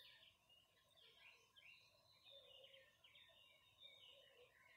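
Faint birdsong: many short chirps and warbling calls overlapping one another without a break.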